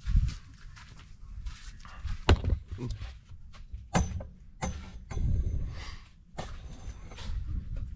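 Low rumble of a handheld camera being moved about, with several sharp knocks and clinks, a few of them leaving a brief high ring.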